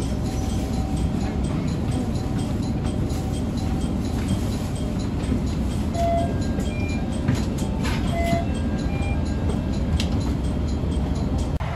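Diesel railcar engine idling while the car stands at the platform, a steady low rumble heard from inside the cabin. A few short electronic beep tones sound about halfway through.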